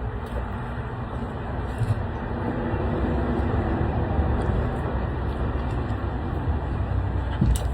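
A steady, low rumble of background noise, like a vehicle running or traffic.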